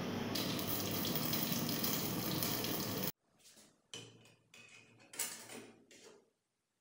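A steady hiss for about three seconds that cuts off suddenly. Then a few faint clinks and liquid sounds as a metal piece held in pliers is dipped into a metal can of liquid.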